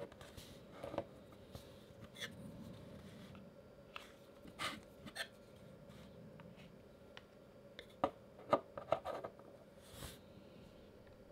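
Vinyl Funko Pop figures and a clear plastic stand handled on a desk: scattered soft clicks and taps as they are picked up, turned and set down, with a quick cluster of taps about eight to nine seconds in. A faint steady hum sits underneath.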